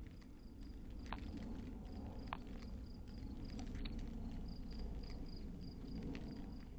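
Night insects chirping in a steady run of short, high pulses, about three or four a second, over a low background rumble, with a few sharp clicks.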